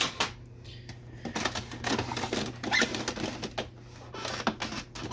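Plastic housing parts of an Epson inkjet printer clicking, knocking and rattling as they are handled and lifted by hand, a dense run of small clicks in the middle.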